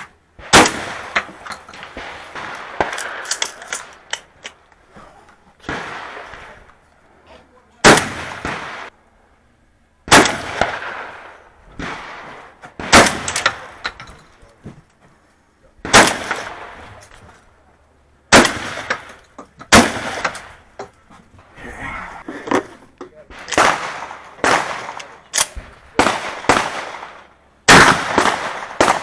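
Shotgun firing a string of loud shots at irregular intervals, a second to a few seconds apart, each with a short ringing tail; the shots come in quicker succession near the end.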